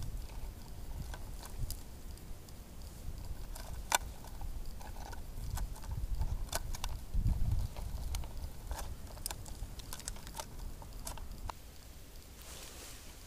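Scattered sharp clicks and taps from handling an ice-fishing tip-up and line at a hole in the ice, one sharper click about four seconds in, over uneven low wind noise on the microphone.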